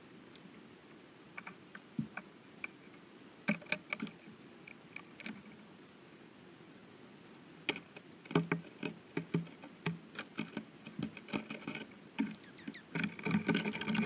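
Birds feeding close to the camera, a woodpecker and dark-eyed juncos: irregular pecks, taps and scrabbles on seed and wood. The taps are sparse at first and grow dense about halfway through as a junco lands.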